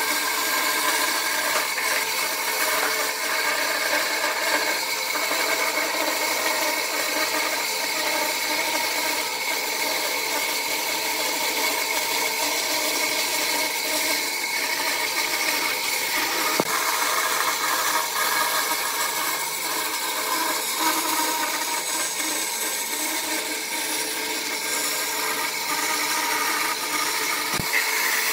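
Bandsaw running steadily while its blade cuts a curve through a thick wooden board.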